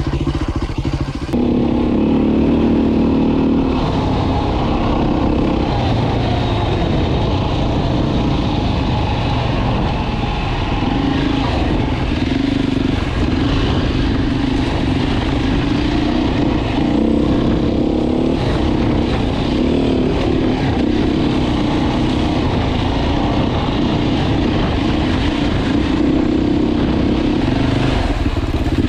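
Beta RR 450 enduro dirt bike's single-cylinder four-stroke engine running under throttle, its note stepping up and down as the rider works the throttle and gears on a rough trail.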